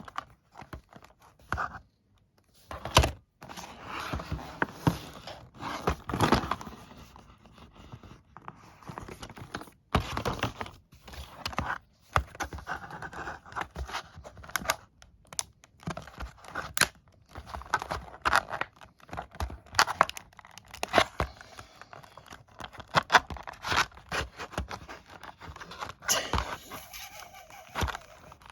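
Toy train packaging being torn open and handled by hand: irregular tearing, scraping and crinkling, with sharp clicks and knocks throughout.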